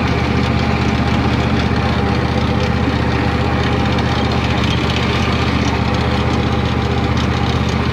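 Husqvarna riding lawn mower's engine running steadily, heard from the driver's seat.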